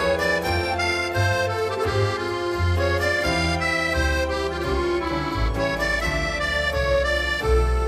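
Instrumental background music: sustained melody and chords over a bass line that steps to a new note every second or so.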